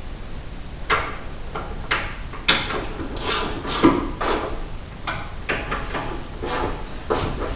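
Irregular clanks and knocks of metal car parts and tools being handled, about a dozen sharp strikes, some with a short metallic ring.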